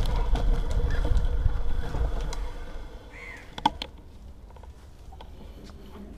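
Wind buffeting and tyre rumble from a bicycle rolling on tarmac, dying away about three seconds in as the bike slows to a stop. After that, a short chirp and a sharp click over quiet background.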